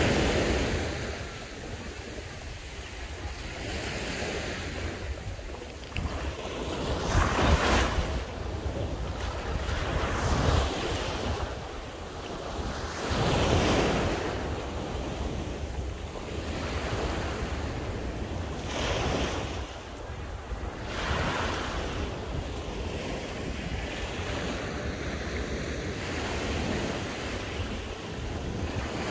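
Sea waves washing onto the beach, swelling and falling away every few seconds, with wind rumbling on the microphone.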